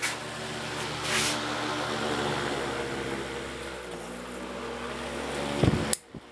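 A vintage Westinghouse two-blade oscillating electric fan runs with a steady motor hum. Near the end there is a brief low thump, then a click as it is switched off, and the hum cuts out suddenly.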